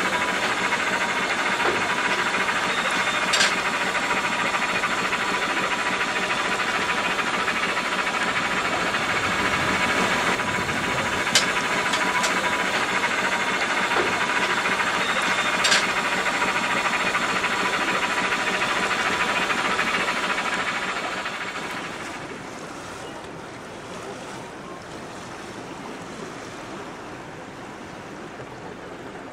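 Steady hiss from the steam yacht Gondola under way, with a faint steady tone and a few sharp ticks. About 21 seconds in it fades to a quieter wash of water.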